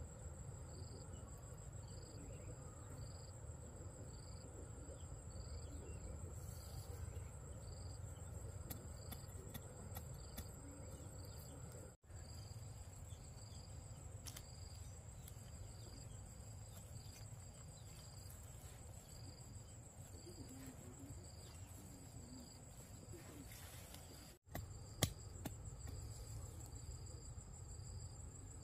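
Insects calling, crickets by their sound: a continuous high trill, and a second insect chirping about once a second, over a low steady rumble. The sound drops out briefly twice, and a sharp click comes just after the second gap.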